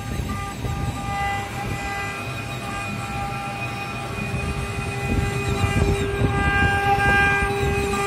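Water-cooled spindle of a CNC router running with a steady whine of several held tones while its bit cuts a slot in a wooden board. A rough low rumble sits under the whine and grows louder about five seconds in.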